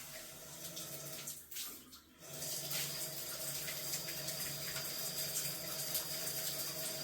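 Cold water running strongly from a bathtub faucet with its tub spout diverter removed, a steady rush; the flow dips briefly about two seconds in, then runs steadier and a little louder.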